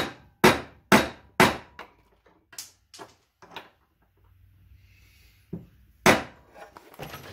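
A pound-and-a-half dead blow hammer striking the punch handle that holds the upper die down on the lower die, crimping a brass rope clamp. Four heavy blows about half a second apart, then lighter knocks, a pause, and another heavy blow about six seconds in, followed by a few smaller knocks.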